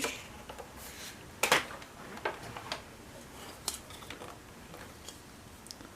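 Irregular light clicks and taps of hard plastic parts of the GI Joe Classified Dragonfly toy helicopter being handled and pushed into place, the sharpest about a second and a half in.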